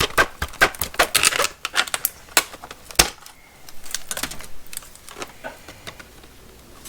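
Thick, hard plastic blister packaging being cut open, snapping and crackling in a rapid run of sharp clicks. Two louder snaps come a little over halfway in, then the clicks thin out and grow fainter.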